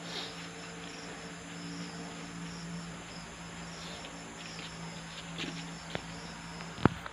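Crickets chirping steadily in short repeated pulses over a low steady hum. A few clicks come late, and one sharp click near the end is the loudest sound.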